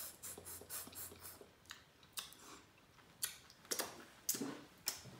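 Close-miked chewing and wet lip-smacking of someone eating saucy seafood boil with their hands. A quick run of small clicky smacks comes first, then a few louder, sharper clicks in the second half.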